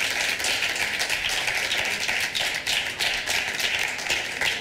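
A small group of people applauding, many hand claps overlapping in a steady patter.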